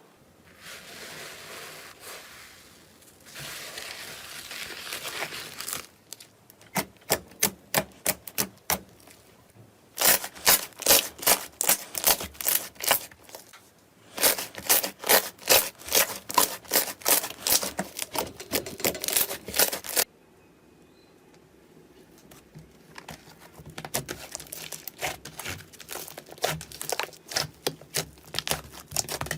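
Slime being squished and pressed by hand: a crackly hiss for the first few seconds, then runs of sharp wet clicks and pops, densest in the middle, with a quieter stretch before the clicking picks up again near the end.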